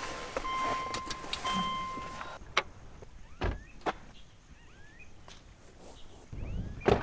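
Subaru Outback's door-open warning chime: a steady electronic tone with short breaks as the doors are opened. It stops about two and a half seconds in. Then come a few sharp knocks of car doors and small birds chirping.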